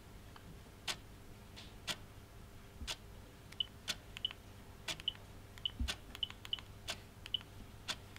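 Clock ticking steadily, once a second. In the second half, short high chirps fall between the ticks, and there is a soft low thud a little past the middle.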